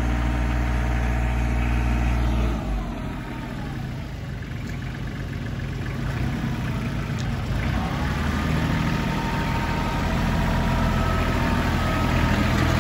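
Kubota L2500 compact tractor's diesel engine running as the tractor drives past, a steady low hum. The sound eases off suddenly about two and a half seconds in, then builds back up steadily through the second half.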